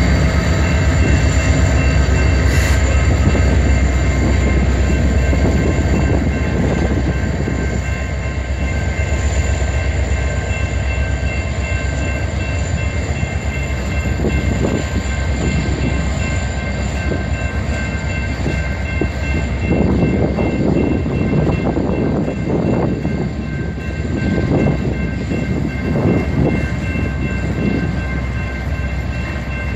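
Slow-moving Union Pacific freight train: a deep, steady rumble with thin high tones held throughout. Louder irregular rattling surges come in over the second half.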